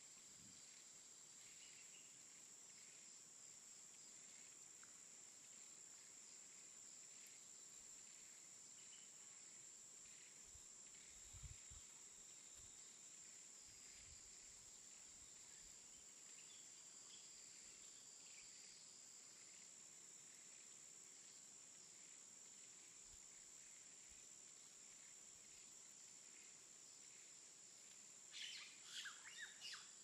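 Faint jungle afternoon ambience: a steady high-pitched insect drone with scattered bird chirps and a low thud about eleven seconds in, then a brief flurry of louder bird calls near the end.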